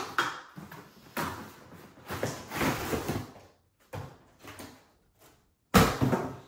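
A red hard plastic tool case being slid out of its cardboard box, a rough scraping rustle, then a few light clicks and one sharp knock near the end as the case is handled on the wooden bench.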